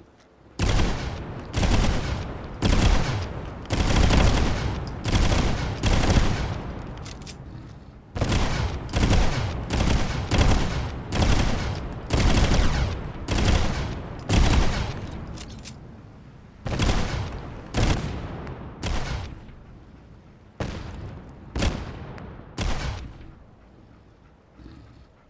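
Enforcer pistol (.30 Carbine) fired as single shots at a steady pace of about one a second, some twenty in all, each followed by a ringing echo, with a few short breaks between strings.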